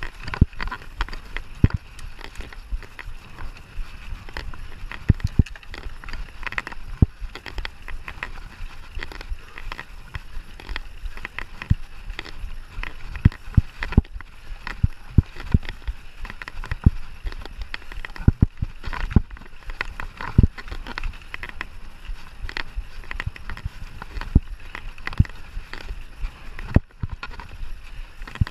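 Cross-country mountain bike ridden over rough ground: frequent sharp knocks and rattles over a steady rumble of tyres and wind.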